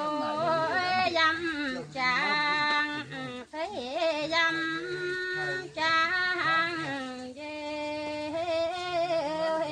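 A woman singing unaccompanied. She holds long notes with wavering turns in pitch and breaks off briefly for breath a few times.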